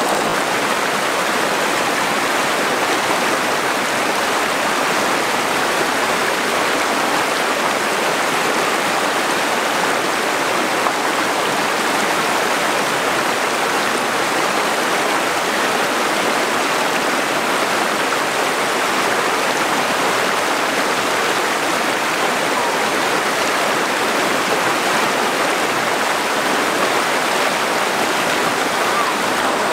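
Steady rushing of flowing water, an even hiss-like rush that does not change.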